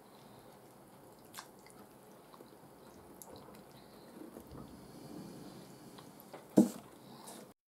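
Eating ramen with chopsticks: fresh noodles lifted out of the broth with soft wet dripping and chewing, a light click about a second in, and one short loud mouth sound near the end as the noodles reach the mouth. The sound cuts out abruptly just before the end.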